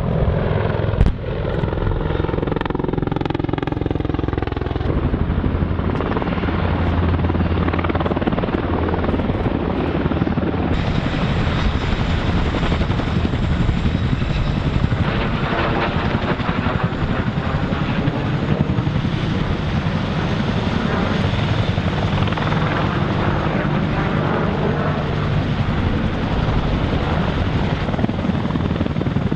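A CH-47 Chinook tandem-rotor helicopter flying and hovering low, its rotors and turbine engines running steadily throughout. A single sharp blast comes about a second in, with a falling whine over the first few seconds.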